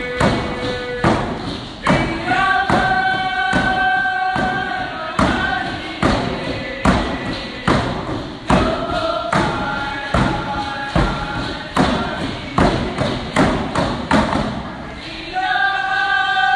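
Hand-held frame drums struck together in a steady beat, a little more than one stroke a second, under a group singing a traditional dance song in long held notes. The singing drops out briefly near the end, then comes back over the drums.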